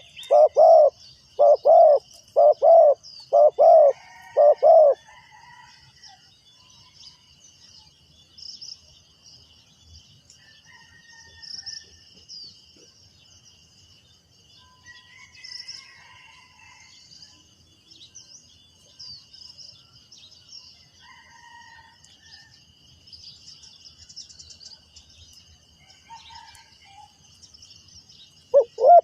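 Spotted dove cooing: a loud run of about seven low coos in the first five seconds, then another coo right at the end. In between only faint high chirping and a steady thin high hiss.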